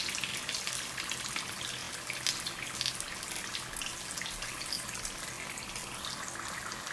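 Vegetable samosas deep-frying in a small pan of hot oil: a steady sizzle with many small crackles and pops.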